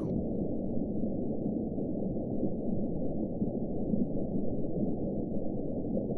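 Deep underwater sea-floor ambience: a steady, muffled low wash of noise with nothing in the upper range.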